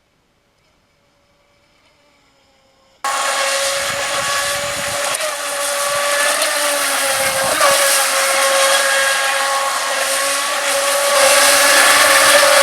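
Near silence for about three seconds, then a sudden start of a radio-controlled model's electric motor running at a steady high whine with loud hiss.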